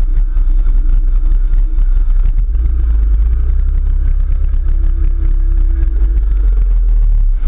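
ATV engine running steadily under a heavy, continuous low rumble.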